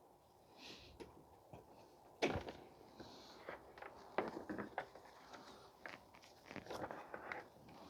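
Irregular clicks and knocks of tools and parts being handled during work on a pickup truck, the loudest knock about two seconds in.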